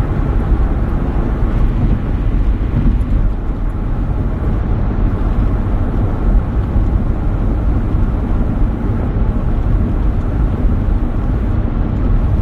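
Loud, steady low rumbling noise with no speech.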